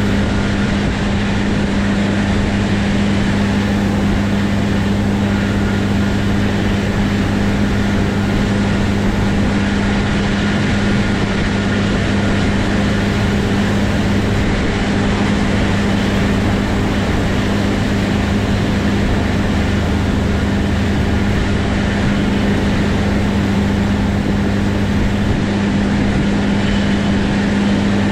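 Heavy diesel engine of harvest machinery running at a constant speed: a steady low drone with a strong, unchanging hum.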